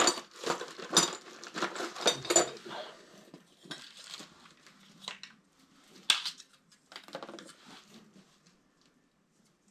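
Hands handling plumbing parts and tape: rustling with quick light clicks and knocks, busy for about three seconds, then a few scattered clicks before it goes quiet.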